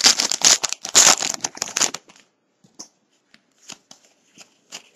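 Foil wrapper of a trading card pack crinkling and tearing as it is pulled off the cards, stopping about two seconds in. After that come a few faint ticks as the cards are thumbed through.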